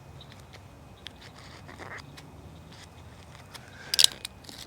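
Faint scattered clicks and scrapes of handling, with a short, sharp scrape about four seconds in.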